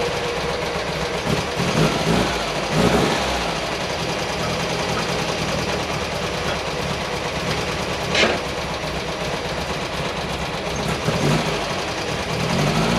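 An engine running steadily at idle, with a single sharp knock about eight seconds in.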